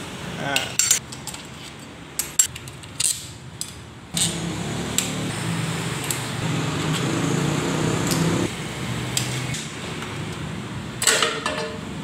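Bolts and small metal parts clinking against a metal parts tray and hand tools, a handful of sharp separate clinks. A steady low hum comes in about four seconds in.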